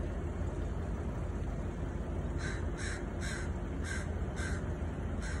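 A crow cawing repeatedly: six short caws starting about halfway through, over a steady low hum.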